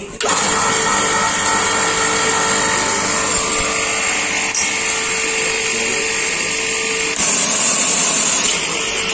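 Global Power GPMK4 electric pressure washer, a 3 kW motor driving a ceramic plunger pump, running with a steady hum. About seven seconds in, a louder hiss of the high-pressure water jet from the long gun takes over for a second or so.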